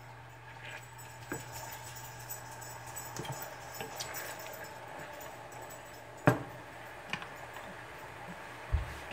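Sweet glaze sauce boiling hard in a small saucepan, a steady bubbling, with a wooden spoon stirring and knocking against the pan now and then; the loudest is a sharp knock about six seconds in.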